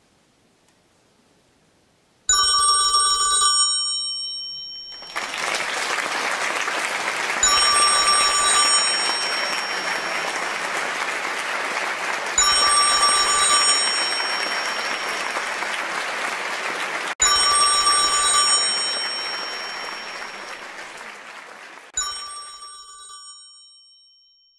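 Near silence, then a telephone bell rings about two seconds in and rings again four more times, about every five seconds, each ring short and trailing off. From about five seconds in, an orchestra and audience applaud under the rings, and the applause fades away near the end.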